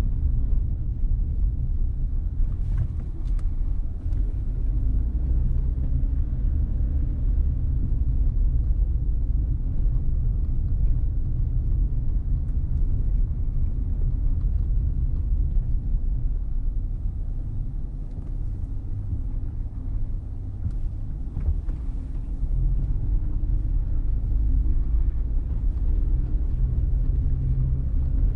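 Low, steady rumble of a car driving slowly, its engine and tyre noise heard from the vehicle itself.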